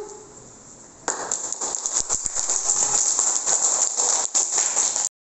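A group of children clapping, starting suddenly about a second in and cutting off abruptly near the end.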